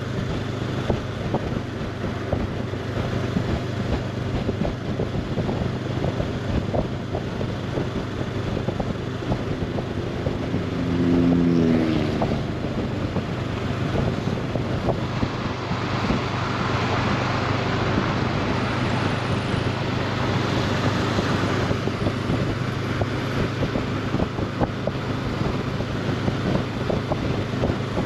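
Honda CB500X parallel-twin engine running steadily under way, with wind rushing over the rider's microphone. About eleven seconds in, a brief louder pitched sound drops in pitch.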